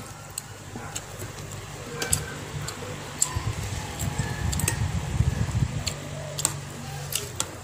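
A spoon clicking and scraping against a plate in scattered short ticks as food is scooped up, over a low steady hum.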